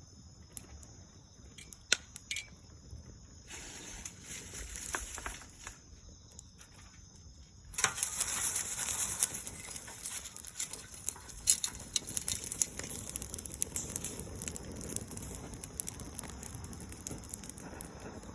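Dried soyogo leaves burning with a dense crackling and popping, many sharp snaps over a hiss; the crackle grows suddenly denser and louder about eight seconds in, after a briefer flare of hissing a few seconds earlier.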